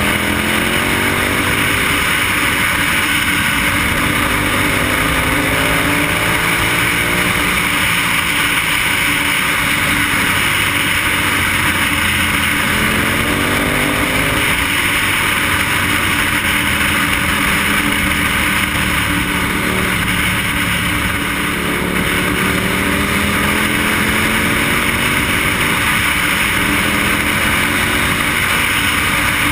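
KTM motorcycle engine under way, its pitch climbing several times as it accelerates and dropping back between climbs, under a steady rush of wind on the helmet microphone.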